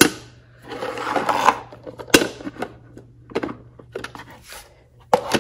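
Small plastic toy trash cans being handled and set down on a table: a series of sharp plastic clicks and knocks, with a brief scraping rustle about a second in.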